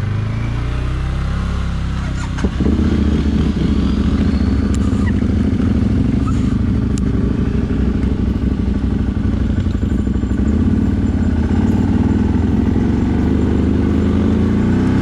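CFMoto 1000 ATV engine running, picking up and getting louder about two and a half seconds in, then holding a steady pace.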